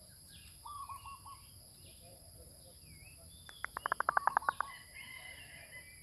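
Zebra doves cooing: a short four-note coo about a second in, then a louder rapid run of about a dozen staccato notes near the middle. Other small birds chirp faintly in the background.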